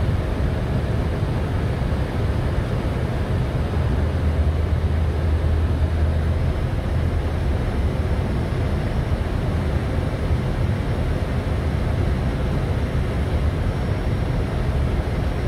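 Steady flight-deck noise of an Airbus A320-family airliner on final approach: a constant rush of airflow and engine noise over a deep hum, swelling slightly around the middle.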